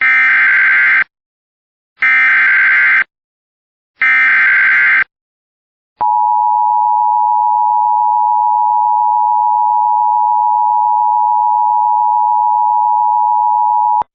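Emergency Alert System header: three one-second bursts of screechy digital data tones, about two seconds apart, followed by the steady two-tone EAS attention signal (853 and 960 Hz together) held for about eight seconds. This sequence marks the start of a new emergency alert broadcast.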